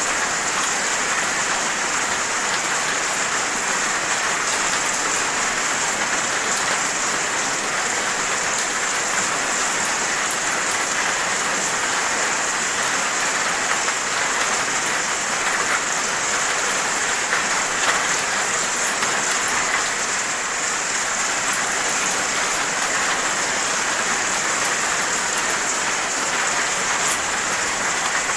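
Steady rain falling, an even hiss of drops with faint scattered patters on a surface, unchanging throughout.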